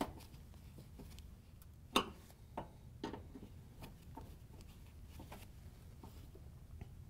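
Phillips screwdriver tightening the mounting screws of a range terminal block into the sheet-metal body: faint scattered clicks and scrapes of the tip working in the screw heads, with one sharper click about two seconds in.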